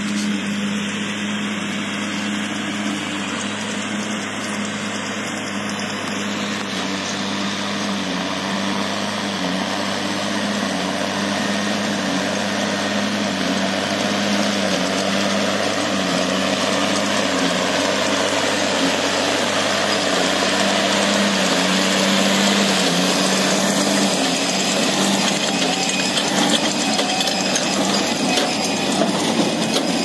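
New Holland T6070 tractor's six-cylinder diesel engine running steadily while pulling a New Holland BB 890 Plus big square baler, with the baler's machinery working behind it. The sound grows louder as the rig comes closer, and a few sharp knocks come near the end.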